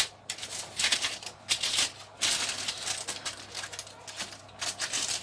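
Partly oven-dried chickpeas rattling and scraping as they are stirred on a baking tray, in irregular bursts with a sharp click at the start.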